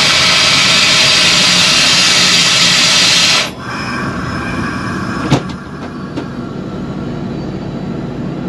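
Inside the cab of a running ZCU-20 diesel-electric locomotive: a loud rushing hiss lasts about three and a half seconds and cuts off suddenly, leaving the steadier, quieter running noise of the train with a couple of sharp clicks.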